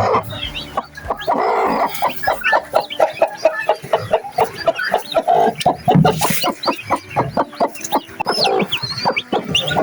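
Chickens clucking in quick, repeated short clucks, with baby chicks peeping in high, short chirps over them.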